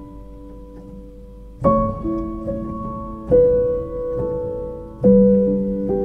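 Background music: soft piano chords struck three times, each left to ring and fade.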